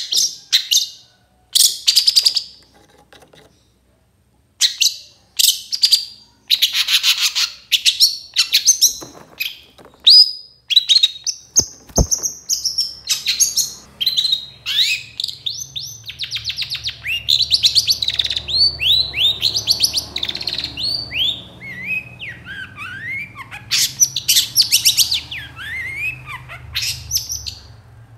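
Long-tailed shrike (cendet) singing loudly: harsh, rasping calls in short bursts separated by pauses, then about halfway through a fast, unbroken run of varied sliding and falling notes. A single sharp click comes just before the run starts.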